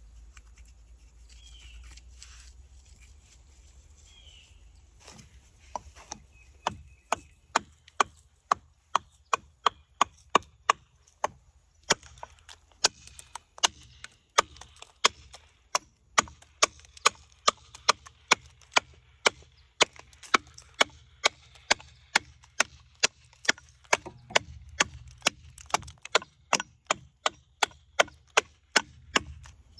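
Walnut wood being hewn with a carving axe: a steady run of sharp chopping strikes, about three a second, starting about five seconds in.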